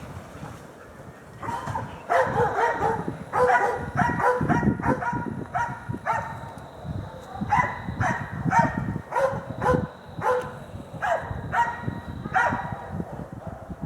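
Hunting dogs baying at a wild boar: rapid runs of barks with short pauses between them.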